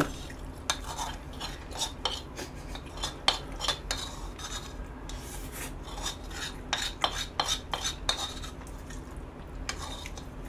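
Cutlery clinking and scraping against a dish as butter rice with soy-braised beef is stirred and scooped: many short, irregular clicks.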